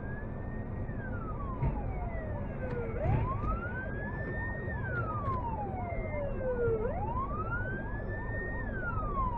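Fire-service vehicle siren wailing, slowly rising, holding, then falling, about every four seconds, with a faster pulsing tone beneath it over low traffic rumble.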